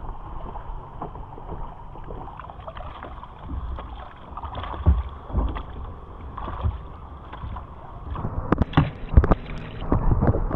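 Double-bladed kayak paddles dipping and splashing in seawater in irregular strokes, with a run of louder splashes and knocks near the end.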